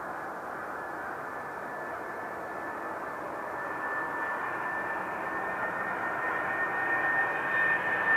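McDonnell Douglas MD-11F freighter's GE CF6 turbofan engines on final approach: steady jet noise with a high whine running through it, growing louder as the aircraft comes closer.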